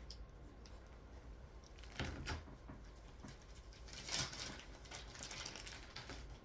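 Faint handling noise of graded comic slabs and their packing: light rustling with scattered small clicks, a little louder about two seconds in and again about four seconds in.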